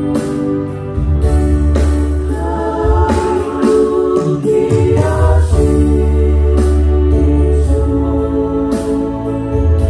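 Church worship team singing a worship song together into microphones, voices in harmony over sustained keyboard chords and a deep bass.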